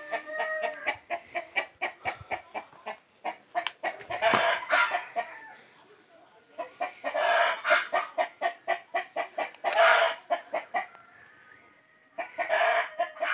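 Chickens clucking in rapid runs of short calls, with louder cackling bursts every few seconds.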